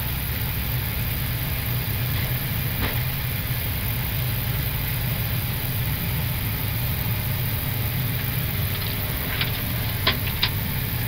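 Flight-deck noise of an Airbus A321neo rolling out on the runway after landing, autobrake just disengaged: a steady low rumble of engines near idle and wheels on the runway under a hiss of airflow, with a few short clicks, most of them near the end.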